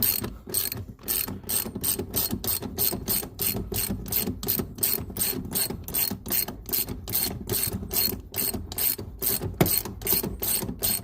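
Hand ratchet wrench clicking steadily, about four clicks a second, as a seat-mounting bolt is backed out of a car floor.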